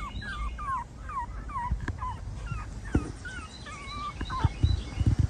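Tiny Pomeranian puppy whimpering: a string of short, falling squeaks, about two a second, with a few low thumps near the end.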